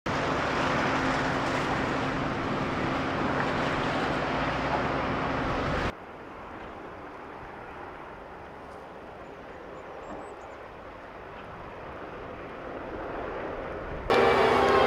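Diesel engine of a landfill compactor running, cut together from separate shots. It is loud and rough with a steady hum at first, then quieter and slowly growing as the machine drives closer. About fourteen seconds in it turns loud again, with a pitched engine whine rising a little.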